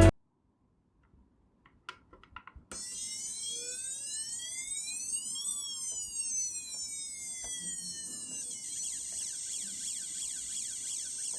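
A few clicks, then the buzzer of a variable siren alarm circuit sounds a high-pitched siren that slowly rises and falls once. About 8.5 seconds in it changes to a fast warbling siren as the slide switch selects another mode.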